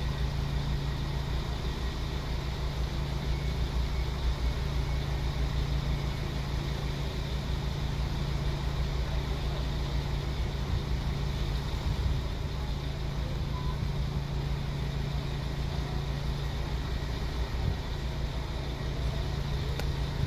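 Steady low hum of an idling diesel train engine, with even background noise and no marked rise or change.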